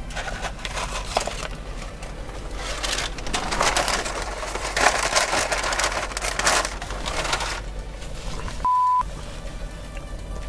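A paper fast-food bag rustling and crinkling for a few seconds as it is handled, over background music. Near the end comes a short steady beep of a censor bleep.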